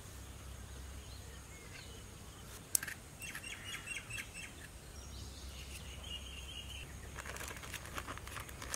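Birds chirping over quiet outdoor ambience: a short quick series of chirps about three seconds in and a held whistled note a little after six seconds. There is one sharp click just before the chirps, and a run of faint clicks near the end.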